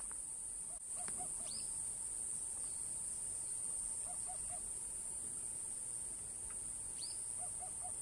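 Eurasian hoopoe singing its low three-note "oop-oop-oop" song, three phrases about three seconds apart. A steady high buzz of Iwasaki grass cicadas runs underneath.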